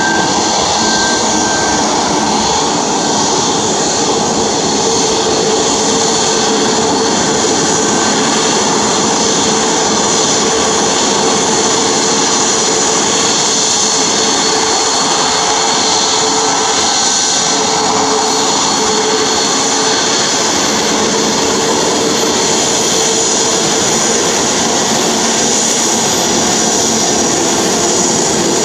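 Boeing 737 MAX 8's twin CFM LEAP-1B turbofan engines running at taxi power: a loud, steady jet rush with a constant whine as the airliner taxis.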